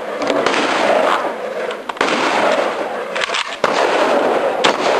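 Shotgun shots on a practical shooting stage over a steady, rough noise. There are sharp cracks, with sudden loud onsets about two seconds in and again just past three and a half seconds.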